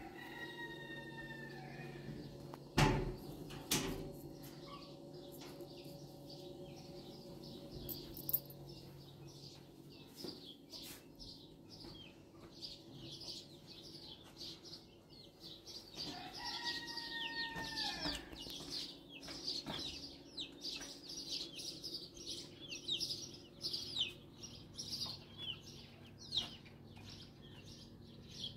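Small birds chirping in a quick, busy chatter that grows much denser from about halfway through. Two knocks sound about three seconds in, and a drawn-out tone that falls slightly at its end is heard twice, near the start and again later.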